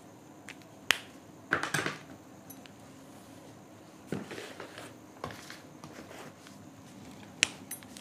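Whiteboard marker being handled: two sharp clicks, about a second in and again near the end, with a few short scuffs between them.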